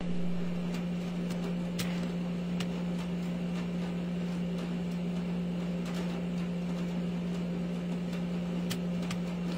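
Steady low hum of a running appliance motor, with a constant low tone and a few faint, scattered ticks.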